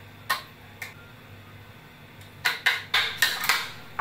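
A metal spoon knocking against a plastic blender jar to shake off sweetened condensed milk: two single taps, then a quick run of about six taps near the end.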